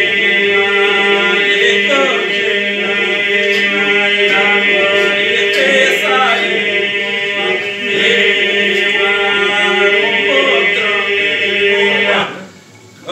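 Men singing an unaccompanied Lab polyphonic folk song: the group holds a steady drone while solo voices weave the melody above it. The singing breaks off near the end.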